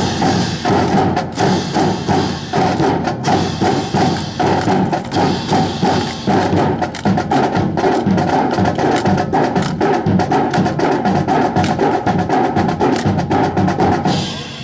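Many wooden-stocked M1 rifles clacking and slapping in quick, uneven rhythm as a drill team spins and strikes them, over background music. The clatter cuts off abruptly near the end.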